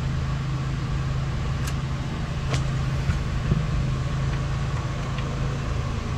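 A steady low mechanical hum, with a handful of light, sharp metallic clicks, about five, as a hex key works the bolts of a cable-actuated hydraulic disc brake caliper.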